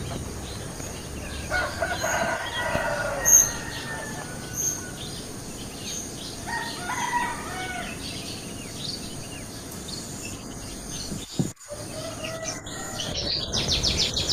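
A rooster crowing about two seconds in, with other shorter bird calls after it. Near the end a fast, high chirping trill.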